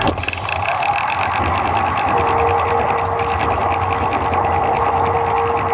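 Street traffic heard from a moving bicycle: vehicle engines and road noise in a steady wash, with a steady hum that joins about two seconds in.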